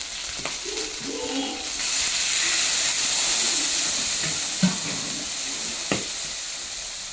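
Stir-fry sizzling in a hot wok: a steady hiss that grows louder about two seconds in, then eases, with two sharp knocks of the spatula against the wok.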